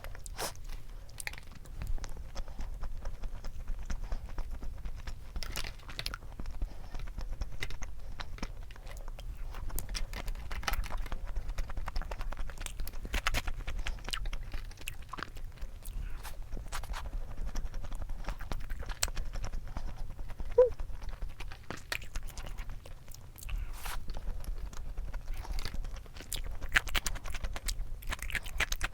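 Close-up sounds of a person chewing and crunching food: many short, irregular crunches and mouth clicks.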